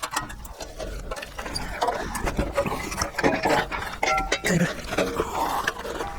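Small metal clinks and knocks of bolts and a sheet-metal cover being handled and fitted back onto a scroll saw, with a couple of brief squeaks.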